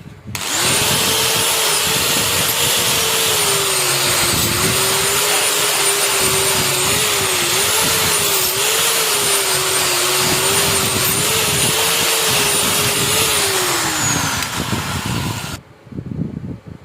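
Electric power tool motor running with a steady whine whose pitch wavers up and down. It starts abruptly, drops in pitch near the end and then cuts off.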